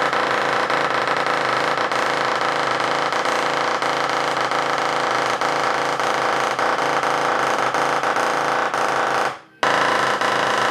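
FlyMarker Pro dot-peen marking machine hammering its pin into an aluminium sheet, a loud, continuous rapid rattle that the wooden table beneath amplifies. It stops for a split second about nine seconds in, then carries on.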